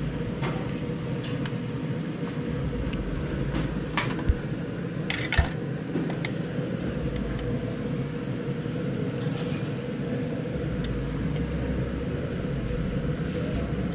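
A steady hum of the serving stall's surroundings, with a few sharp clinks of a metal ladle, pot and ceramic bowls being handled; the loudest two come about four and five seconds in.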